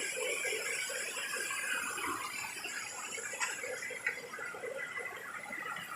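Water trickling softly, with two light clicks a little past the middle.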